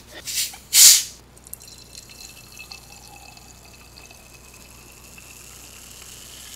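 Carbonated soda poured from a plastic bottle into a glass, the stream splashing and fizzing, with a faint tone that rises slowly as the glass fills. About a second in come two loud, short hissing bursts.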